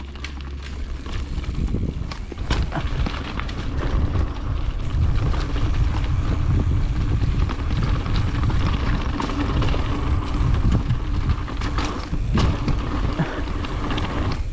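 Mountain bike rolling down a dirt trail: tyres on the ground and the bike rattling and knocking over bumps, with wind rumbling on the microphone that grows louder over the first few seconds.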